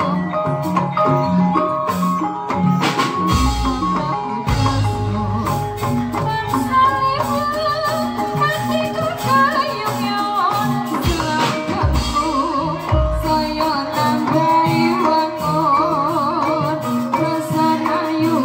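Live Javanese jaranan accompaniment: gamelan percussion and drums playing a busy rhythm, with a wavering high melody line over it. Deep low booms sound a few seconds in and again about two-thirds through.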